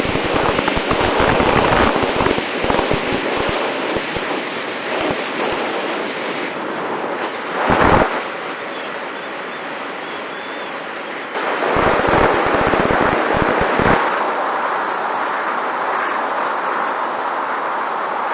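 Wind rushing over the microphone of a camera riding on a flying RC plane, with irregular low buffeting rumbles; a strong gust blast about eight seconds in and another spell of buffeting from about twelve to fourteen seconds.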